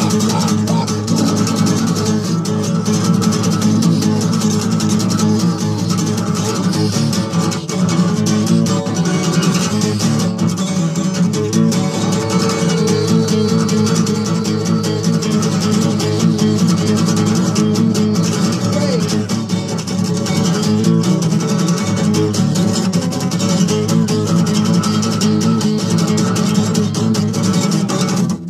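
Guitar music: a song's guitar part playing steadily at a full, even level.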